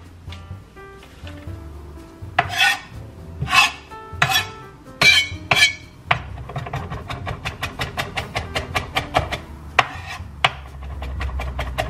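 A kitchen knife chopping fresh cilantro on a cutting board: quick, even strokes about five or six a second from about halfway through, with a short break near the end. Before that come a few short scraping sounds against the board. Background music plays underneath.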